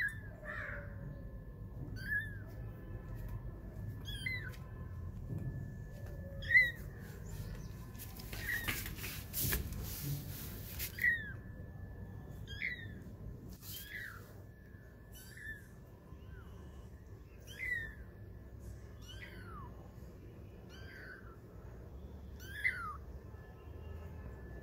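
Very young kittens, about three weeks old, mewing: short, thin, high-pitched mews that rise and fall, one every second or two. A burst of noise runs for about two seconds, about eight seconds in.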